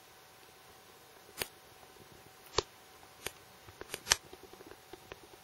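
Sharp clicks and ticks of a hand-held camera being handled, five or so distinct ones with the loudest about four seconds in, over a faint steady hum.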